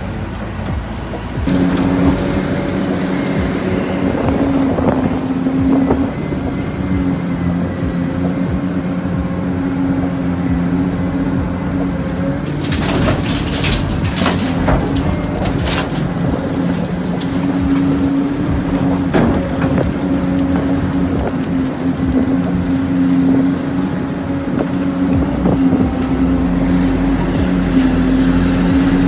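Radio-controlled construction vehicle running: a steady engine-like drone with a thin high whine over it. A short cluster of sharp knocks and clatter comes about halfway through.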